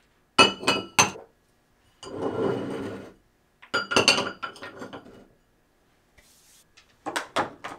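Glass perfume bottles and small cosmetics clinking against a dish and the countertop as they are set down and arranged, in three bursts of sharp ringing clinks, with a scraping rub between the first and second.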